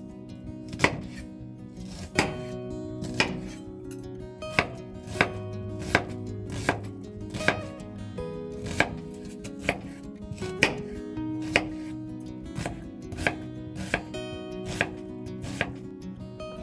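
Knife chopping food on a cutting board in slow, even strokes, about one stroke every second or a little less, with acoustic guitar music underneath.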